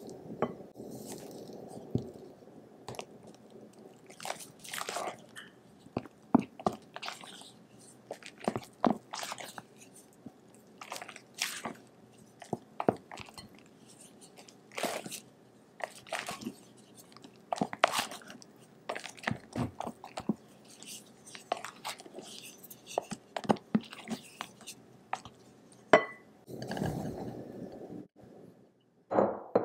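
Silicone spatula folding egg yolks and vanilla paste into meringue in a glass bowl: irregular soft, wet strokes with scrapes against the glass. Near the end, cake flour sifting through a metal mesh sieve gives a short rustling hiss.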